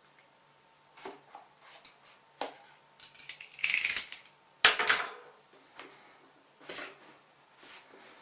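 A product box being opened by hand: scattered clicks and knocks of the packaging, a short scraping rustle about three and a half seconds in, and a sharp knock just before five seconds in.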